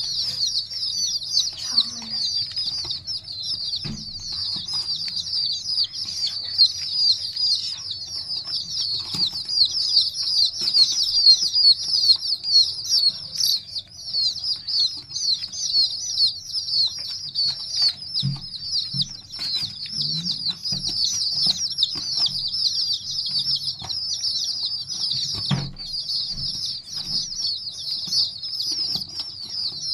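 A brood of young domestic chicks peeping continuously: many high, short chirps overlapping into a dense chorus, with occasional faint knocks.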